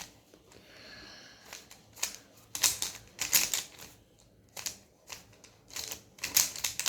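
Plastic speedcube (Rubik's cube) being turned by hand, its layers clicking and clacking in quick irregular runs of turns.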